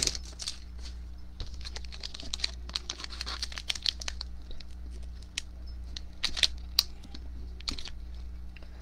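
Foil trading-card pack wrapper being peeled and torn open by hand: a run of small crinkles and ticks, over a steady low hum.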